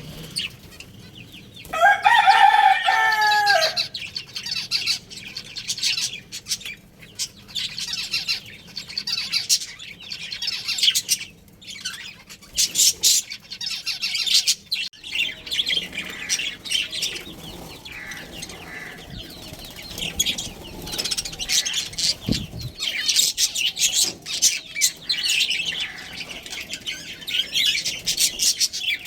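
Budgerigars chirping and chattering in a dense run of high, quick chirps. About two seconds in, a rooster crows once, a loud call of nearly two seconds that drops in pitch at the end.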